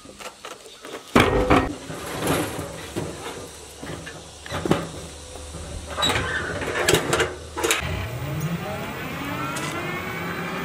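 Heavy metal knocks and clanks around a stripped single-cylinder 1115 diesel engine, the loudest about a second in. Then a motor tricycle's engine revs up, rising in pitch, and runs steadily as the vehicle pulls away.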